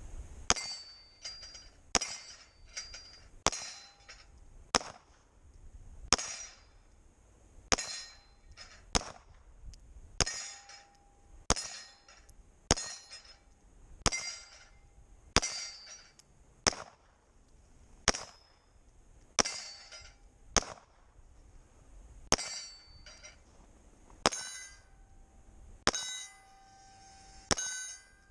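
Pistol shots fired at a steel plate rack, about twenty spaced roughly a second apart, most followed by the brief ringing clang of a struck steel plate.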